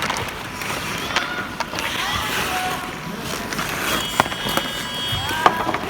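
Inline hockey play: skate wheels rolling on the rink surface, with a few sharp clacks of sticks and puck.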